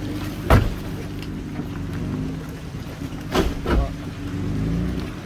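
Off-road vehicle crawling over a rutted mud track: a steady low engine hum, with sharp clunks of the vehicle jolting over ruts about half a second in and twice more a little past the middle.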